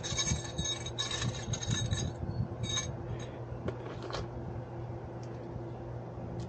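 Small metal hardware clinking and rattling as hands rummage through a plastic bucket of parts, busiest in the first three seconds and then only a few scattered clicks. A steady low hum runs underneath.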